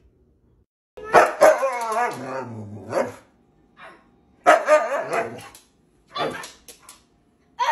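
Siberian husky vocalizing: a long, wavering, pitched call that falls at its end about a second in, a second call near the middle, then a few short ones near the end.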